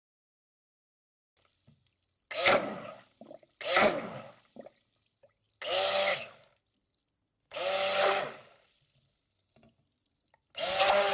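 Electric kitchen blender pulsed in five short bursts of about a second each, the motor whine spinning up and dying away every time, after a couple of seconds of silence.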